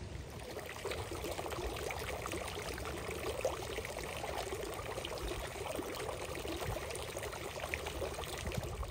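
Garden fountain: thin jets of water from frog statues arcing into a stone-edged pool, splashing and trickling steadily, a little fuller from about a second in.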